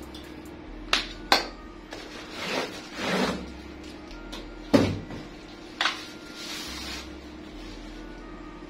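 Ceiling fan parts being handled and set down on a concrete floor: a few sharp knocks and clacks, the loudest a little under five seconds in, with rustling of plastic wrapping in between. A faint steady hum runs underneath.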